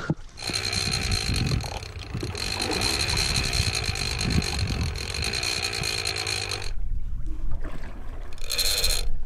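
Clicker of a Penn 130 big-game reel ratcheting rapidly as line pays out behind a bait tossed over the side. It stops abruptly about two-thirds through and buzzes again briefly near the end.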